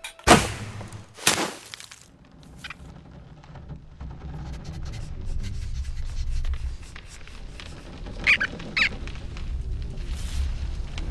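Cartoon sound effects: two sharp thwacks about a second apart, then a low rumble that slowly grows louder, with two short high squeaks from the cartoon rodents about eight seconds in.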